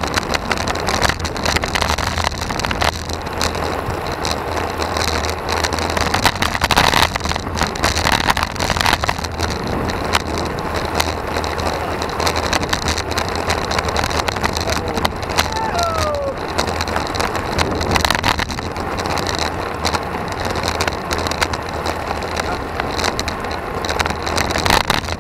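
Wind noise on the microphone of an action camera on a moving road bike, over a steady low rumble of tyres on asphalt, with scattered knocks from the road surface. A brief falling squeak comes about sixteen seconds in.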